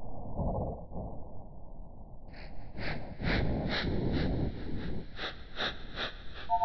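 Sound-art soundtrack of processed noise: a muffled, rumbling wash at first, then from about two seconds in a steady pulsing of brighter, breath-like noise, about two to three pulses a second.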